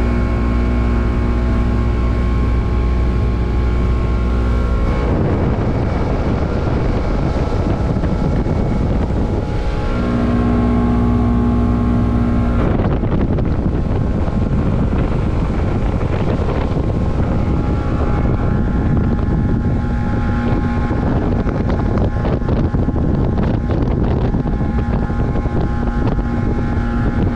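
Motorboat engine running steadily underway, with wind rushing over the microphone and water noise along the hull. The engine note and the rushing change abruptly about five and thirteen seconds in.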